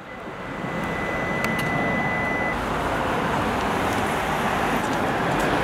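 Steady rush of road traffic, fading in over the first second, with a thin high steady tone for about the first two and a half seconds.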